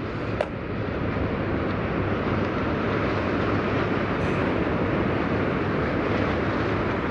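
A train passing on a nearby elevated track: a steady rushing rumble that builds over the first second and eases slightly near the end. A single sharp click is heard just after the start.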